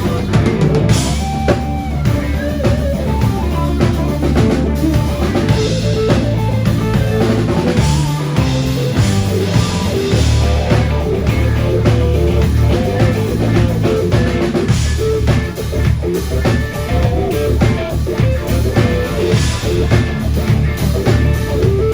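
Live blues-rock band playing loud: electric guitar over bass and a full drum kit, heard through a handheld recording from the audience.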